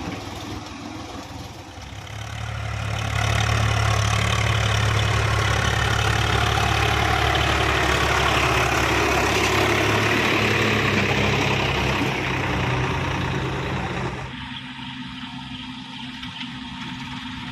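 Heavy diesel engine running: it revs up about two seconds in, holds at high revs for some ten seconds, then drops back to idle near the end.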